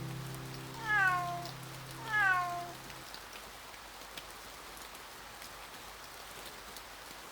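A kitten meowing twice, about a second apart, each call high and falling in pitch. Under the calls a held musical chord stops about three seconds in, leaving a soft steady hiss.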